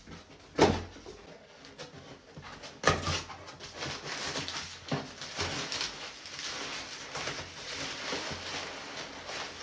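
A cardboard box being opened: two sharp knocks about half a second and three seconds in, then a run of crinkly rustling as crumpled packing paper is pulled out of it.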